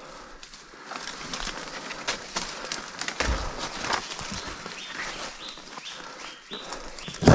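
Footsteps crunching through dry leaf litter and brushing past undergrowth. In the second half a bird calls a run of short rising notes, and a sharp thump comes near the end.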